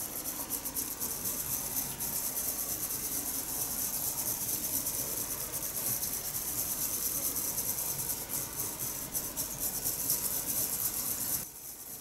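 A whisk being worked quickly in a small bowl of matcha and water, a fast, steady brushing and swishing against the bowl, as she tries to whisk it to a froth. It stops abruptly near the end.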